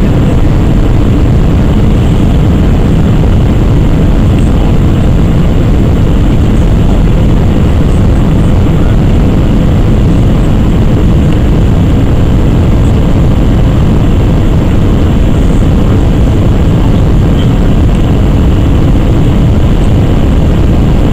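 Steady, loud cabin noise inside an Airbus A319-100 in flight: a constant low rumble of engines and airflow with no change in level.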